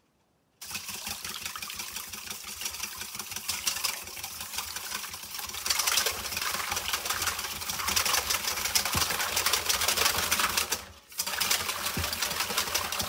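Wire balloon whisk beating pancake batter in a stainless steel bowl: a fast, continuous rattle of the wires against the metal, with a short pause near the end.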